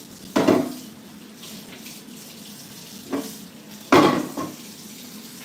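Kitchenware being handled: three clattering knocks, loud ones about half a second in and at about four seconds, with a smaller one just before the second, over a low steady hum.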